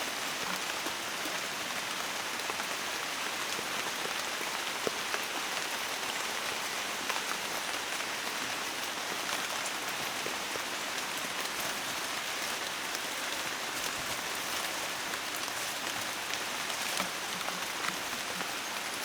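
Steady rain hiss with faint scattered drop ticks.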